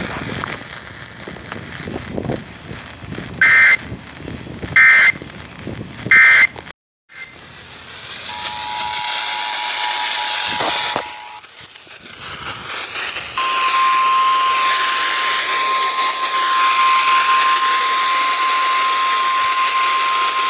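Emergency Alert System broadcast over radio hiss. Three short squawking data bursts about a second and a half apart (the end-of-message code) are followed by a brief dropout. Then comes a short two-tone attention signal and, from about two-thirds of the way in, the steady single-pitched NOAA Weather Radio warning alarm tone announcing the next alert.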